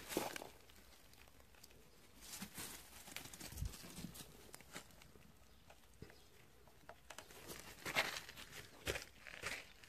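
Footsteps crunching on gravel, with rustling and handling noise from the phone, a dull thump about three and a half seconds in, and a louder crunch near the end.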